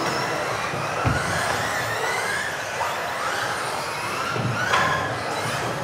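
Several brushless electric off-road RC cars racing, their motors whining up and down as they accelerate and brake, with a sharp knock about a second in.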